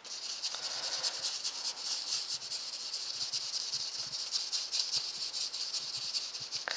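Paintbrush scrubbing paint onto watercolour paper in quick circular strokes: a steady, rapid dry scratching of bristles on paper.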